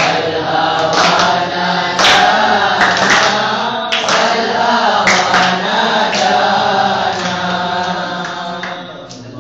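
A group of boys singing a qasidah together in unison, unaccompanied, with hand claps about once a second. The singing slowly fades over the last few seconds.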